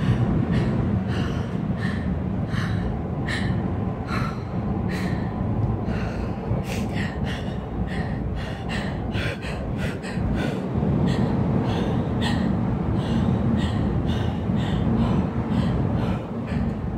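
Steady low rumble of a Peak 2 Peak gondola cabin travelling along its cable, with many short sharp sounds, several a second.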